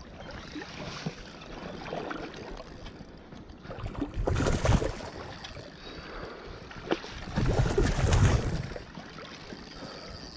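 River water splashing and sloshing as a hooked cherry salmon struggles at the surface near the landing net, with two louder rushes of noise about four and eight seconds in.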